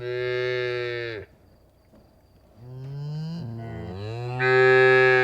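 A cow mooing twice: a call that ends about a second in, then a longer one that rises in pitch, grows louder and stops near the end.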